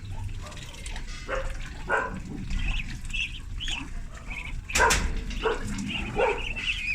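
Ducklings calling: many short high peeps overlapping, with a few louder, sharper calls, the loudest about five seconds in.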